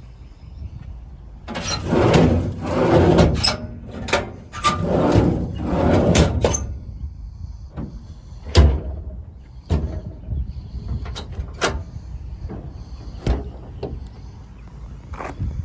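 Metal doors and latches on a truck's service body being handled: a few seconds of sliding and scraping, then a string of separate clunks and clicks, the loudest about halfway through.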